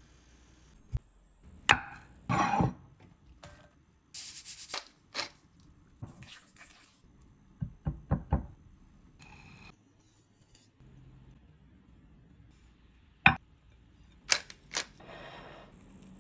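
Kitchen food-prep sounds: a knife cutting on a cutting board, with a quick run of three chopping strikes about halfway through, among scattered sharp knocks, clicks and short scraping and rustling noises.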